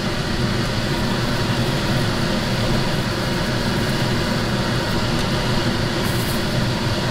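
A fan running with a steady hum and whoosh.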